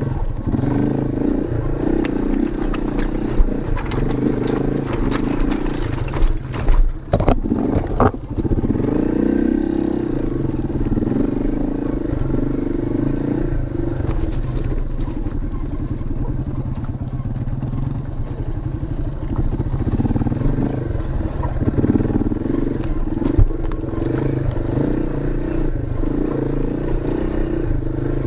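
Small single-cylinder four-stroke dual-sport motorcycle engine pulling at low speed along a rocky trail, its pitch rising and falling with the throttle. A cluster of knocks and clatter comes about six to eight seconds in, as the bike jolts over rocks.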